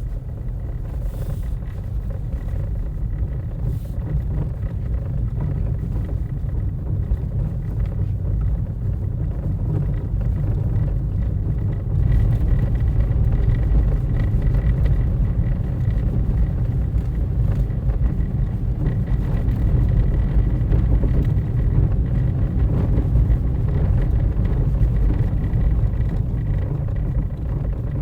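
Car engine and road noise, a steady low rumble heard from inside the moving car. It grows louder about twelve seconds in and eases off near the end.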